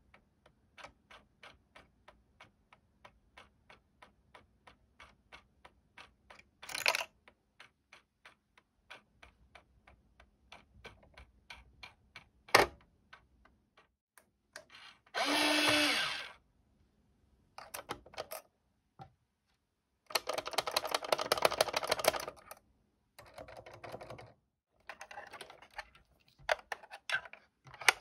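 Minions coin bank's small motor-driven mechanism, run at 9 volts from a bench supply, clicking steadily at about three clicks a second. It is followed by one sharp click, a louder burst, and later bouts of clattering handling noise.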